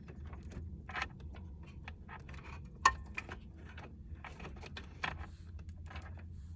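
Small clicks, taps and light rattles of a truck's wiring harness and its plastic connectors being handled, the sharpest tap about three seconds in with a brief metallic ring, over a steady low hum.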